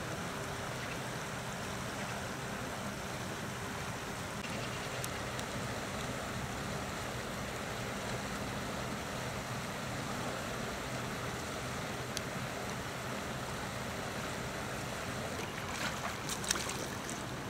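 Steady rush of a shallow river running over a stony riffle, with a faint low hum underneath. A few light clicks come near the end.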